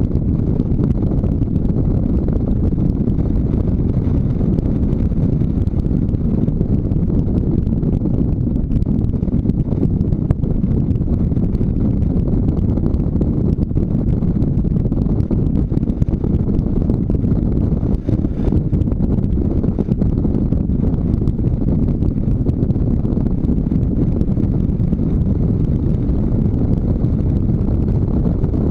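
Motorcycle riding at a steady speed, heard as a continuous low rumble of wind buffeting the microphone over the running engine, with no change in pace.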